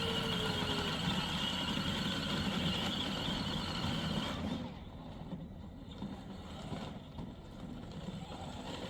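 24V electric ride-on toy car's drive motors and gearboxes whining steadily as it drives, then stopping about halfway through, leaving a quieter low background.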